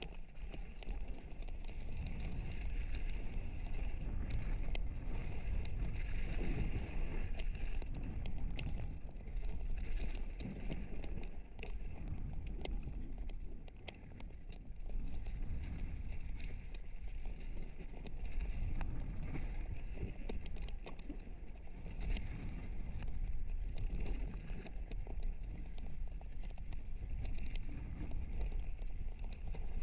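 Mountain bike descending a bumpy dirt and gravel trail, heard from a camera on a full-face helmet: steady wind rush and tyre rumble with constant rattling and clicking, much of it the Fox Proframe RS helmet rattling around the visor-mounted camera.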